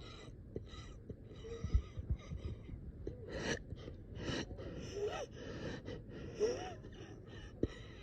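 A person taking rapid, shallow, gasping breaths, several with a brief squeaky wheeze. This is the labored breathing of someone short of breath and struggling to get a deep breath.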